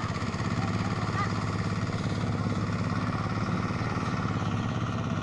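A small engine running steadily at a constant speed, a low hum with a fast even pulse.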